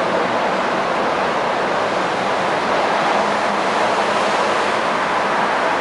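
Steady rumble and hiss of a railway platform with a train running in the distance; no distinct event stands out.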